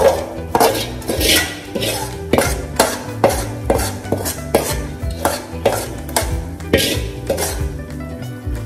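A metal spoon knocking and scraping against a cooking pot, about two strikes a second, as fried shallots are stirred into simmering bone soup, over background music.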